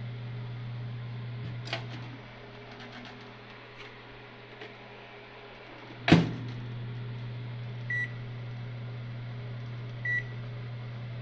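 900 W microwave oven humming steadily even though its timer has counted down to zero: the machine keeps running when it should have stopped, a fault, with an abnormal noise from the casing. A click comes early, a loud clunk about halfway through, then two short beeps about two seconds apart.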